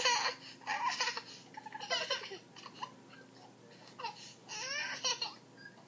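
A toddler's babbling and laughing in about five short, high-pitched bursts, heard through the tablet's speaker over a video call.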